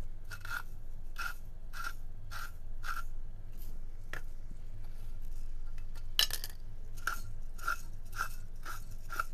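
Hand-turned spice mill grinding seasoning over a pan, with short crunches about two a second. There are two runs of six or seven twists, with a pause of about three seconds between them.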